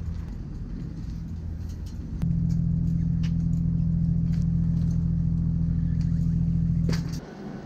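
Steady low rumble of a moving vehicle. It grows louder suddenly about two seconds in and drops away abruptly near the end.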